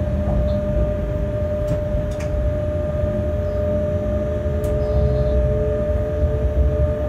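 Electric freight locomotive running along the line, heard from the cab: a steady whine of several held tones over a low rumble, with a few sharp clicks about two seconds in and again past the middle.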